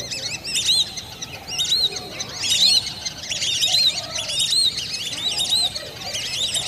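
A flock of lesser whistling ducks calling: many short, high whistles that rise and fall, overlapping and repeating throughout.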